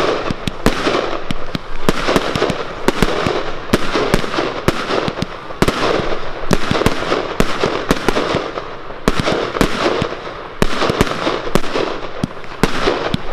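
Professional fireworks display: a dense, unbroken barrage of sharp firework bangs, several a second, with a steady noisy crackle between them.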